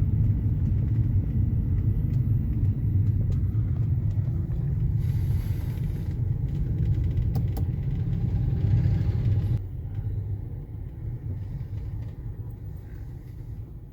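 Car on the move: a steady low rumble of engine and road. It drops suddenly about ten seconds in and fades toward the end.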